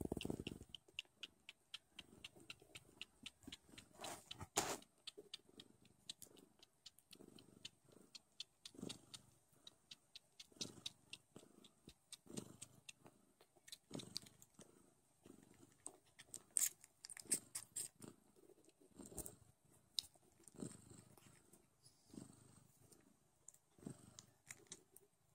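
Don Sphynx kittens suckling at their mother: a fast run of small wet clicking and smacking sounds, with a few louder smacks, over a soft cat purr that swells and fades about once a second.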